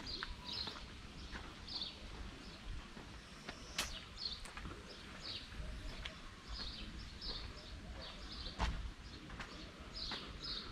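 Small birds chirping in short, repeated calls over a low, steady rumble, with a few sharp clicks.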